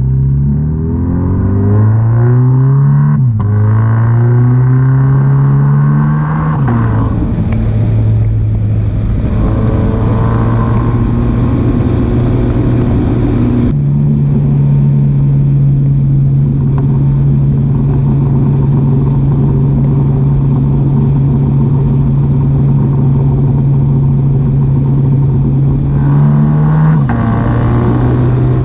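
Scion FR-S's flat-four engine through a catless, non-resonated straight-pipe exhaust, pulling up in revs twice with sharp drops between like upshifts, then holding steady revs at a cruise. Near the end the revs rise briefly and drop again.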